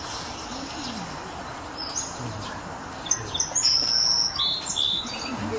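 A small songbird singing: a run of short, high, clear chirping phrases starting about two seconds in and loudest around the middle, over steady background noise.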